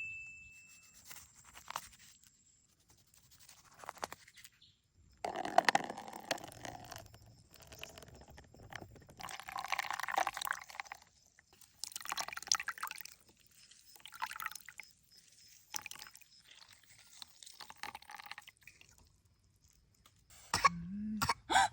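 Liquid being poured and handled in short, irregular bursts with quiet gaps between them.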